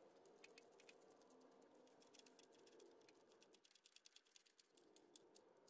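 Faint, quick clicking of a ratchet wrench's pawl in irregular runs as it turns a bolt on the starter's support bracket.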